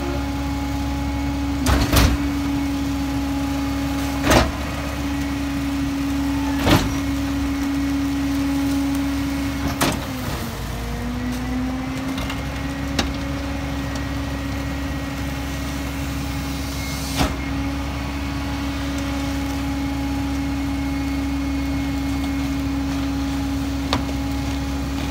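Roy Strom EZ Pack Goliath rear-loader garbage truck running with a steady hum. Heavy paper yard-waste bags land in the hopper as a string of thuds, most of them in the first ten seconds. The hum dips in pitch about ten seconds in, then settles again.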